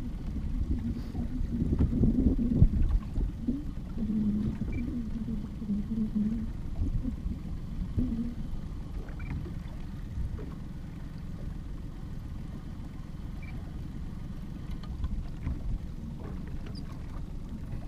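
Low rumbling noise of wind on the microphone and water against the hull of a small fishing boat. It is louder in the first half.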